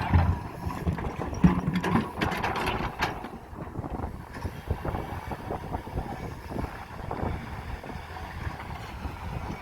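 Cat 320 excavator's diesel engine running, with a burst of knocks and clatter in the first three seconds and lighter rattling after.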